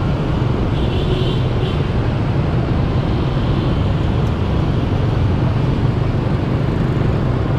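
Steady traffic rumble heard from a motorbike riding along in dense motorbike traffic: its own engine and the many motorbikes and cars around it.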